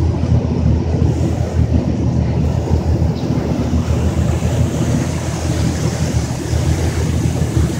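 Steady low rumble of a sightseeing boat's engine under way, mixed with wind buffeting the microphone.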